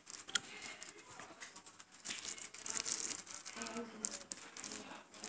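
Plastic wrap crinkling and rustling in irregular bursts as a kitten paws and bats at it, with scattered light taps.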